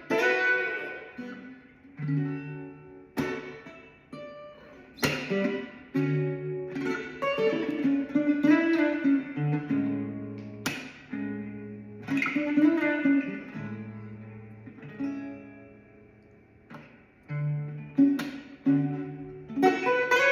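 Solo guitar played fingerstyle: plucked notes and chords ring out and die away, with a few sharp percussive strikes on the instrument. The playing thins out to a quiet patch past the middle, then picks up again near the end.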